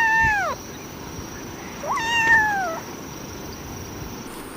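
Domestic cat meowing: the tail of one meow at the start, then a second meow about two seconds in, each dropping in pitch at the end.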